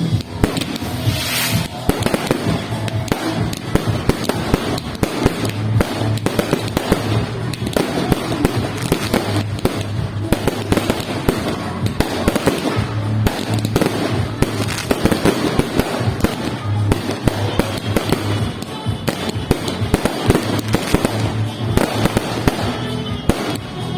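Fireworks going off without a break: a dense, rapid run of crackles and bangs, with music underneath.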